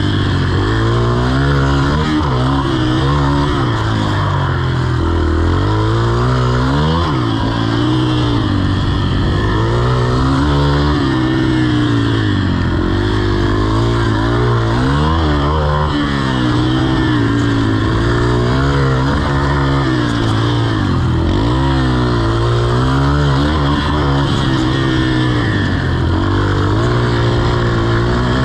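Yamaha TT-R125 dirt bike's four-stroke single-cylinder engine being ridden hard around a dirt track, its pitch rising and falling every couple of seconds as the throttle is opened and closed.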